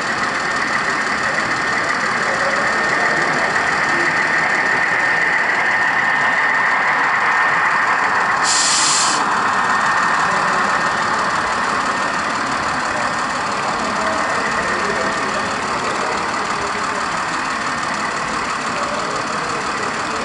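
Model trains running on a large layout: a steady mechanical hum with a high steady tone over the background of a busy hall, and a short hiss about eight and a half seconds in.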